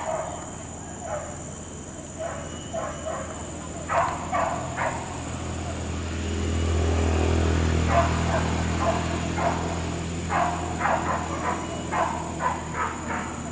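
Hunting dogs yelping and barking in quick bursts of several calls, as dogs do on the chase in a wild boar hunt. A steady high insect drone runs underneath, and a low hum swells and fades in the middle.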